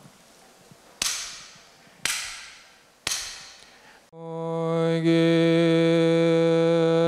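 Three sharp percussion strikes about a second apart, each ringing out briefly, then a monk's voice starts a Buddhist chant on one long, steady note.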